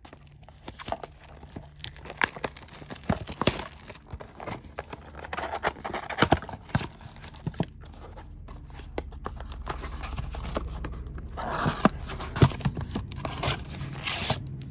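A trading-card pack's wrapper being torn open and crinkled, with rustling and sharp clicks of the cards and packaging being handled, in several spells.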